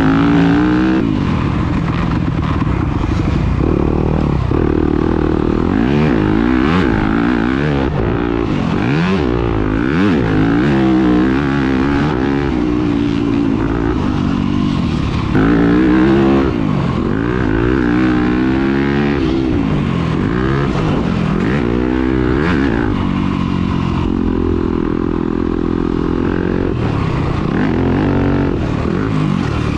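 Motocross dirt bike engine ridden hard, its pitch climbing and dropping over and over as the throttle is opened and shut through gear changes.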